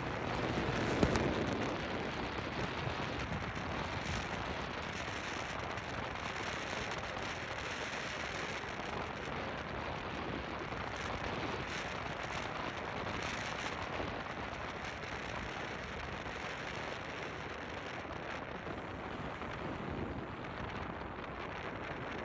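Moving car's tyres on a snow-covered road, a steady crackling hiss, with one sharp click about a second in.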